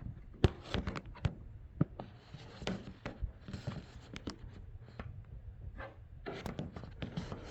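Irregular light clicks, taps and scraping of a flathead screwdriver and hands working at plastic parts inside a washer cabinet, with a longer stretch of scraping about two seconds in.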